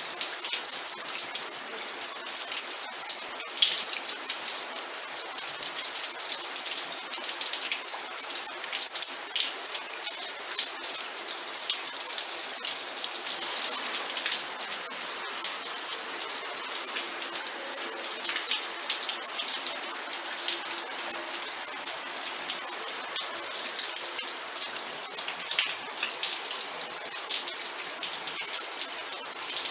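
Steady rain with many close individual drops pattering on a surface, a dense even hiss throughout with no thunder.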